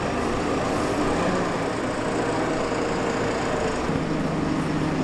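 Engine of farm machinery running steadily, with its note shifting about four seconds in.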